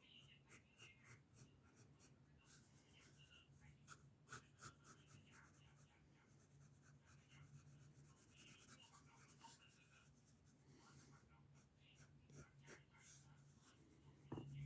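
Graphite pencil scratching on paper in many short, quick strokes, faint, over a steady low hum.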